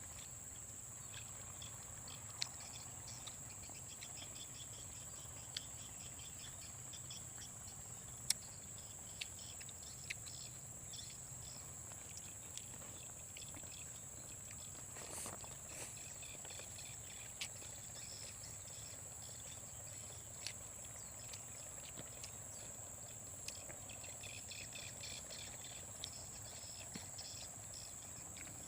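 Forest insects droning steadily at a high pitch, with fainter pulsing insect calls beneath and a scattering of sharp single clicks.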